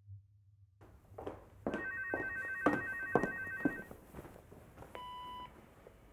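A big-button corded desk telephone rings once with a pulsing electronic ring lasting about two seconds, with several thumps around it. About five seconds in comes a single short steady beep.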